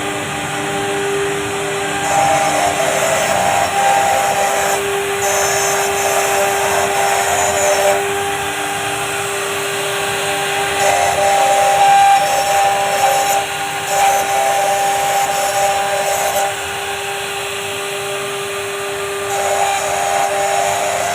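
CNC router spindle running with a steady whine while the bit cuts, the cutting noise swelling and easing every few seconds as the tool moves through the work.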